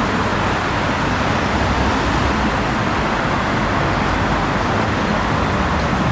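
Steady road traffic noise: a continuous rush of passing vehicles with no single event standing out.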